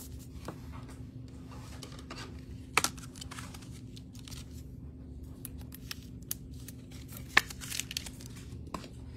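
Trading cards and foil pack wrappers being handled: scattered crinkling and light ticks, with two sharp snaps, one about three seconds in and one about seven seconds in, over a faint steady hum.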